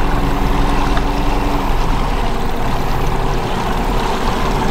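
Small boat's outboard motor running steadily as the boat travels up the creek, with rushing noise from the run.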